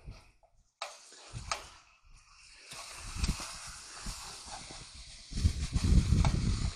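Ground hamburger frying in a skillet, with a steady sizzle and a metal spatula scraping and tapping against the pan as the meat is broken up. About five seconds in a louder low rumble comes in over the sizzle.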